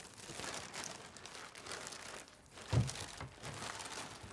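Plastic shopping bags rustling and crinkling as they are handled and a bottle is packed into them, with a dull thump a little under three seconds in.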